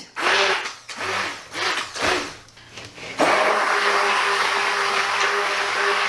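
Handheld stick blender switched on about halfway through, running steadily with a constant hum as it pulps shredded paper soaked in hot water for paper clay. A few short bursts of sound come before it starts.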